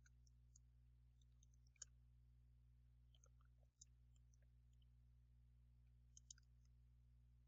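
Near silence: faint, scattered computer-keyboard typing clicks over a low steady electrical hum.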